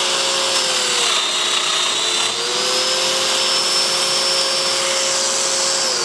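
Festool DF 500 Domino joiner running while plunging a through mortise into 18 mm plywood. Its motor pitch dips about a second in as the cutter bites and climbs back up a second or so later. A dust extractor runs steadily through the hose alongside it.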